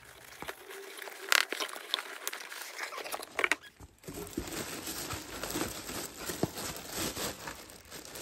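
Handling of packaging: paper rustling with a few sharp crackles at first, then from about four seconds in, steady crinkling of the thin plastic bag wrapped around a new toaster as hands smooth and pull at it.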